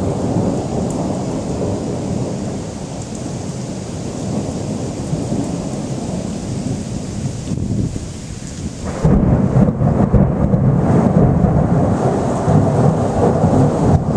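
Rolling thunder rumbling and slowly dying away, then a second, louder roll of thunder breaking in about nine seconds in.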